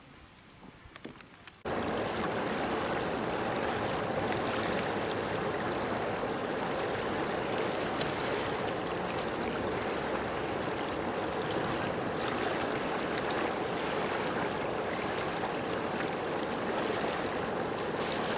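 A steady rush of running water that starts abruptly about two seconds in, after a brief quiet stretch with a few faint clicks.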